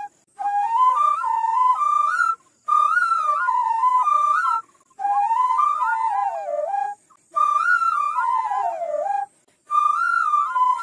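Solo bamboo flute playing a melody in short phrases of about two seconds, with brief pauses between them and a few sliding notes that fall in pitch.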